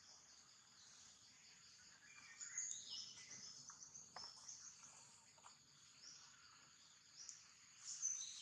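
Faint, steady high-pitched insect chorus, with a few short chirps about two to three seconds in and again near the end.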